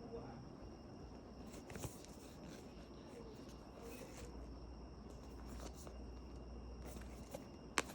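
Faint handling sounds of a product box and packaging being opened, with scattered small clicks and a sharp click near the end, over a steady low hum.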